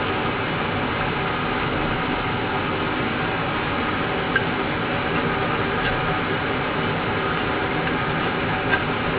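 Steady rumbling noise, even in level throughout, with a faint click about four seconds in and another near the end.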